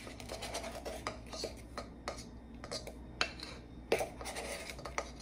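Light clicks and scraping as a baking powder can is handled and its lid opened, a few separate small knocks spread through.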